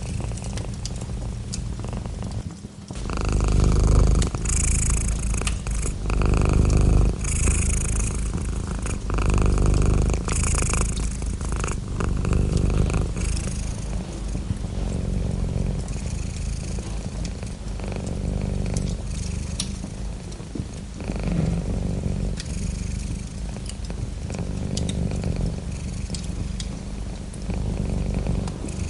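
Domestic cat purring close up, a steady low purr that swells and eases every few seconds, with light crackling clicks from a wood fire.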